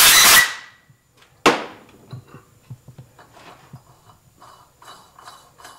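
Compressed-air blow gun blasting a loud hiss into the freshly tapped threads of a motorcycle cylinder head, to clear out chips. The blast cuts off about half a second in. A single sharp clank follows about a second later, then faint clicks of handling.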